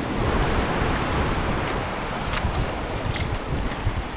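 Sea waves washing on the shore, with wind gusting across the microphone.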